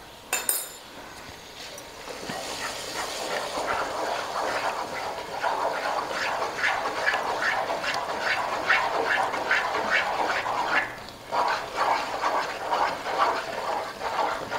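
A knock near the start, then beaten eggs poured into a pot of hot semolina and coconut halwa and worked in with a wooden spatula: a wet, sizzling churn with quick regular strokes, about two or three a second. It breaks off briefly about three-quarters of the way through.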